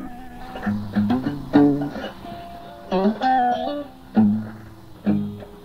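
Guitar intro to a song on a home cassette recording: slow picked notes with a chord struck about every second or so.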